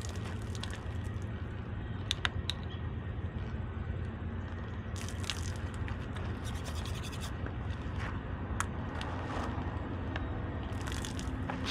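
Teeth being brushed with a manual toothbrush, in spells of quick scratchy scrubbing, with water splashing from a plastic bottle onto the brush at the start and again near the end. A steady low engine hum runs underneath.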